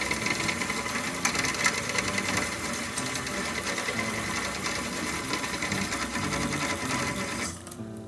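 Spinning reel cranked fast to wind thin PE braided line onto its spool under tension: a steady, rapid mechanical whirr of gears and running line. It stops about seven and a half seconds in, as the last of 250 m of line goes on.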